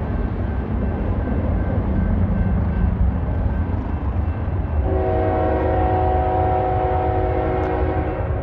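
Union Pacific GEVO locomotive's Nathan K5HL five-chime air horn sounding one long, loud chord about five seconds in, held for roughly three seconds, over a steady low rumble.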